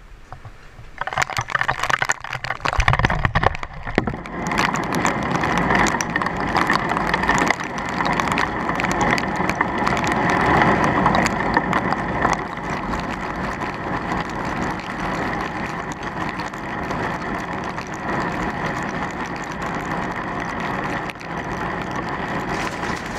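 Heavy rain and hail pelting down on a camera set out on the truck, a dense hiss packed with sharp ticks. There is a low thump about three seconds in.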